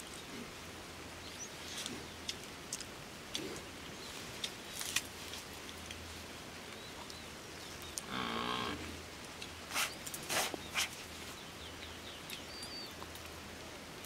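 A goat bleats once about eight seconds in, a wavering call about a second long, among a few scattered sharp clicks and knocks.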